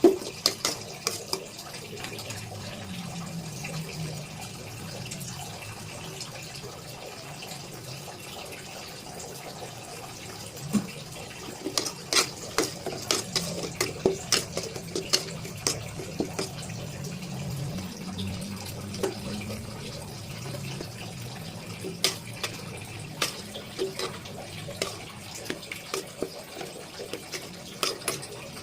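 Kitchen cooking sounds: a steady watery hiss with repeated sharp clinks of a utensil against a pot or pan, coming in clusters about halfway through and again near the end.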